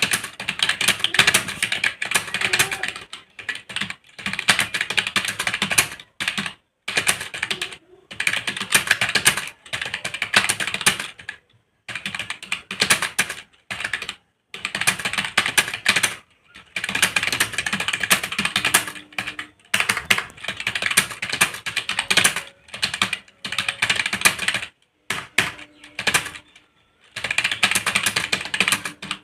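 Fast typing on a computer keyboard during a timed typing test: rapid runs of key clicks lasting a few seconds each, broken by brief pauses.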